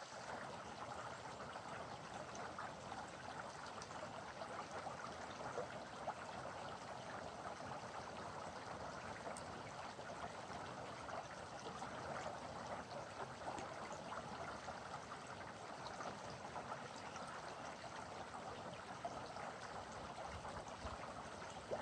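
Shallow rocky stream running over stones, a steady sound of flowing water.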